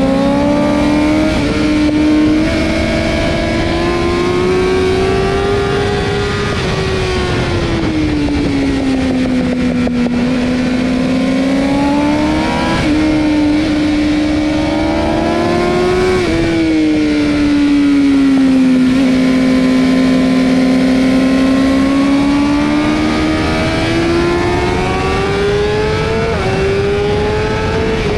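2023 BMW S1000RR's 999 cc inline-four engine on track, heard from the rider's seat: the revs climb and fall several times as the bike accelerates and brakes for corners, with a few sudden breaks in pitch at gear changes.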